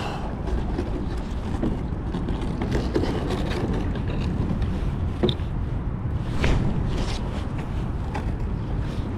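Steady wind noise and moving creek water around a kayak, with a few sharp knocks, the loudest about six and a half seconds in.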